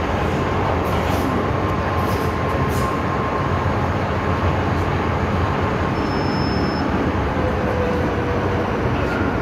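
MTR M-Train electric multiple unit running on the track, heard from inside the carriage: a steady rumble and rush, with a couple of short faint whines in the second half.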